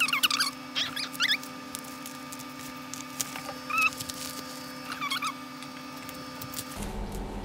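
Short, high squeaky calls that bend up and down in pitch, a few in quick succession at first and then two more spaced apart, over a steady hum that cuts off abruptly near the end.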